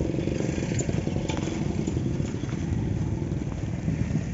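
A low, steady engine rumble with a fine, even pulse.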